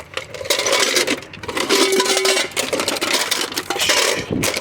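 Loose metal scrap clinking and rattling as pieces are handled and shifted, a dense run of small metallic knocks.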